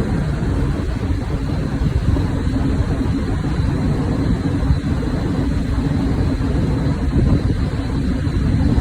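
Strong sea wind buffeting the microphone: a steady, loud low rumble.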